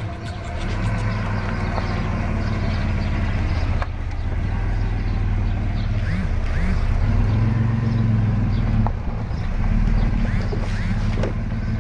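Engine of a crash-damaged 2002 Chevrolet Blazer running steadily as the truck is driven slowly. It is a 4.3 L V6. A few short high chirps cut through about halfway and again near the end.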